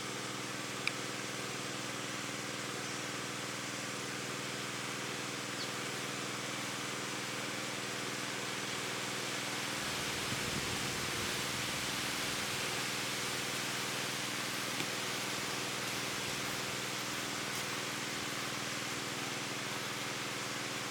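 Steady outdoor background hiss with a low, steady hum underneath, and a brief low rumble about ten seconds in.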